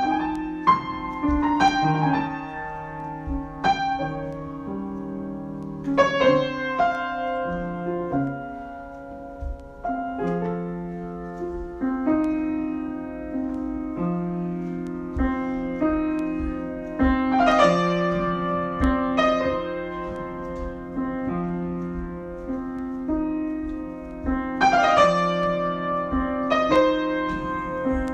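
Solo piano improvisation: a low figure repeats about every two seconds while chords and melody notes are struck above it and left to ring, with louder chords about six seconds in, around the middle and near the end.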